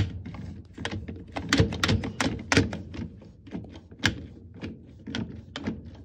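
Whirlpool top-load washer with an old-style agitator running and rattling: an uneven string of knocks and clunks over a low steady hum. The owner suspects the pump.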